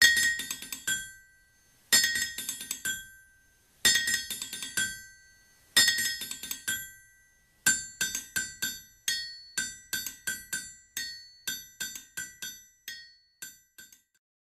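Theme music played as ringing hammer strikes on an anvil: four short flurries about two seconds apart, then a faster, steadier run of strikes that stops shortly before the end.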